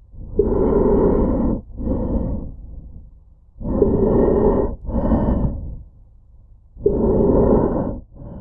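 Heavy, slow breathing through a gas mask with a round filter canister: three loud breaths, each a long draw followed by a shorter one, with a brief hum at the start of each long one.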